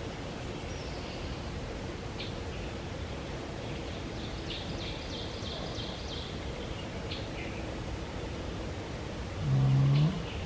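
A sleeping person snoring, one loud low snore near the end, over a steady background of night noise with a few short high chirps and a brief trill.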